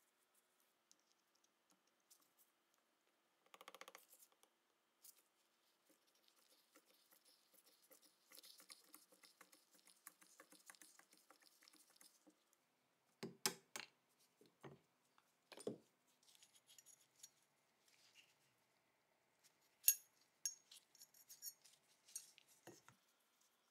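Faint metallic scraping and small clicks from hand tools picking a spring and plunger out of a rusty Colt 1903 pistol's steel frame held in a vise. A few sharper clicks and taps come a little past halfway and again near the end as the small steel parts and frame are handled.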